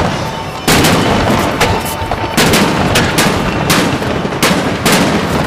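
Aerial firework shells bursting overhead in a rapid barrage: sharp bangs about two a second, with a low rumble between them.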